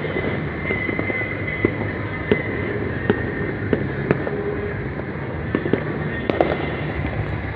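Fireworks and firecrackers going off all over a city: a continuous din of distant bangs, with sharper, nearer pops at irregular moments about once a second.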